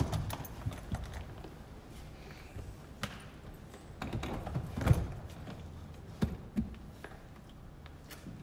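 Hard-shell suitcases being set down and shoved into a car's boot: a run of knocks and thumps, the loudest about five seconds in, with two lighter knocks a second later.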